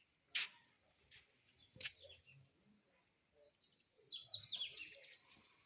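A songbird singing a fast, twittering phrase of high notes that starts a little past halfway, after a few short sharp ticks.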